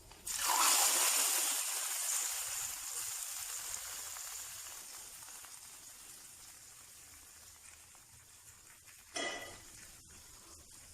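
Hot coconut-oil tempering of mustard seeds, dried red chillies and curry leaves poured into rasam, setting off a sudden loud sizzle. The sizzle fades away over several seconds.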